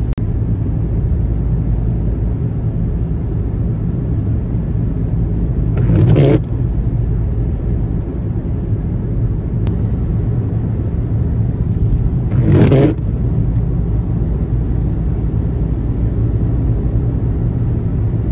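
Steady road noise and engine hum of a car driving on a wet highway, heard from inside the car. Two short, loud bursts of noise stand out, about 6 and 12.5 seconds in.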